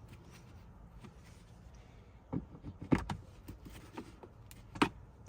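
Quiet for about two seconds, then a handful of short, sharp clicks and knocks from the plastic glove box and a screwdriver as hex screws are fitted back in. The loudest come about three seconds in and near the end.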